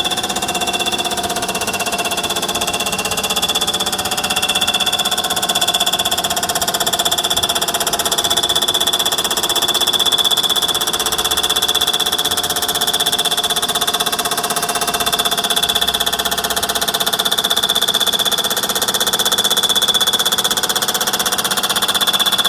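CNC mill face-cutting the deck of an LSX engine block with a CBN-insert cutter: a steady high-pitched whine over a fast, even chatter as the inserts shave the deck surface flat.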